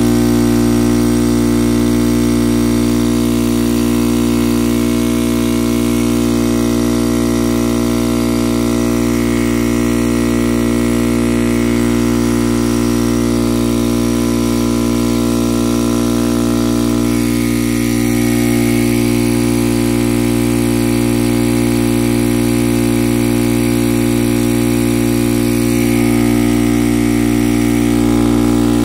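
Craftsman air compressor's electric motor and piston pump running steadily with a loud, even hum, building pressure in the tank.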